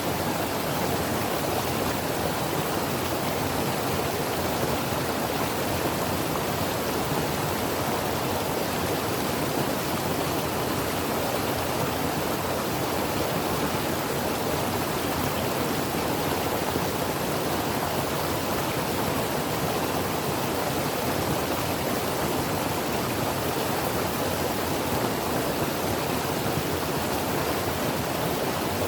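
Creek water rushing over rocks in a steady, even flow, with no change in level.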